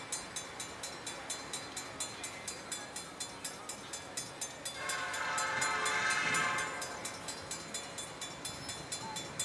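Grade-crossing warning bell ringing in steady rapid strokes, about three a second, as a locomotive approaches. About five seconds in, the approaching locomotive's air horn sounds one long blast that swells and fades.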